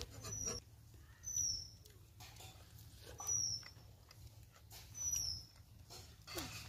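A bird's short, high, falling call, repeated three times about two seconds apart, over faint rustling and clicks.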